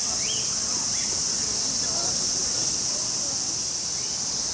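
Steady high-pitched insect chorus, with one short rising chirp near the start.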